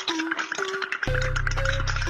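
Background music: an upbeat, bouncy tune of short plucked-sounding notes over a quick clicking beat, with a low bass note coming in about halfway through.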